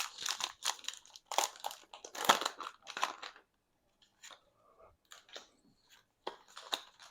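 Foil Pokemon booster pack wrapper being torn open and crinkled, a dense rustle for about three seconds, then a few faint light ticks and rustles as the cards are handled.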